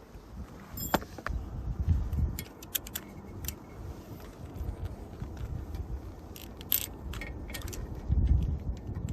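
Scattered light metallic clicks and clinks, as of tools and small parts being handled, over a low rumble.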